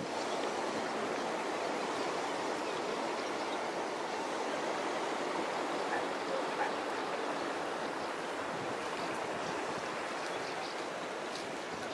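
Steady rushing of churned water in the canal trough of an aqueduct.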